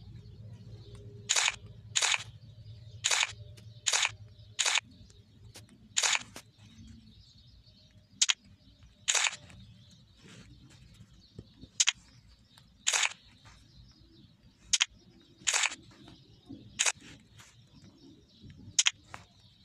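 A series of short, sharp snaps, about fifteen of them at irregular intervals roughly a second apart, over a faint low rumble.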